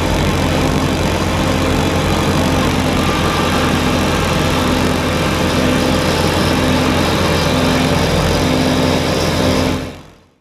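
Kubota BX23S compact tractor's three-cylinder diesel running steadily under load, driving its front-mounted snowblower, with a dense rushing noise over the engine hum. It fades out near the end.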